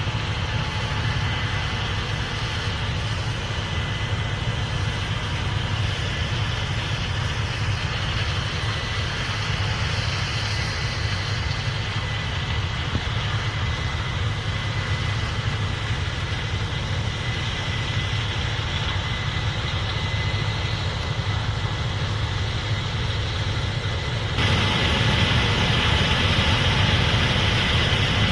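Case IH 8250 Axial-Flow combine running steadily while harvesting corn: a constant machine drone with a faint steady whine. About 24 seconds in it turns abruptly louder and brighter.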